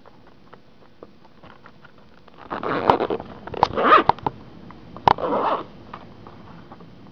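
Zipper of a hard-shell 2.5-inch hard-drive case being pulled in three short strokes, starting about two and a half seconds in, with sharp clicks among them and faint handling clicks before.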